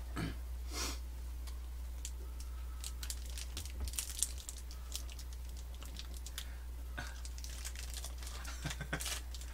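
Thin plastic wrapper crinkling and crackling as it is peeled off an individually wrapped surichwi rice cake, in irregular bursts, busiest about three to five seconds in and again near the end. A steady low hum runs underneath.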